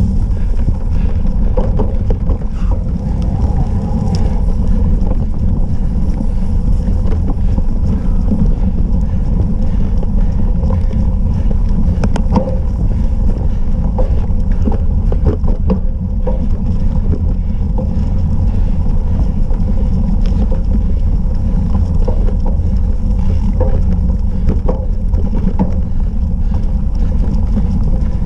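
Wind buffeting the microphone of an action camera riding on a cyclocross bike over rough grass, a loud steady deep rumble. Scattered clicks and knocks from the bike rattling over bumps, more of them in the middle.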